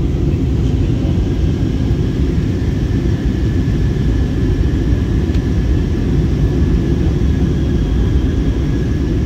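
Steady cabin noise inside an Airbus A320-214 in flight, from its CFM56-5B engines and the airflow over the fuselage: a deep, even rumble with a faint steady high whine above it.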